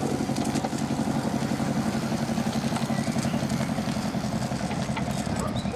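Model IP Engineering Simplex locomotive on a garden railway, giving a steady, rhythmic diesel-engine chug as it passes.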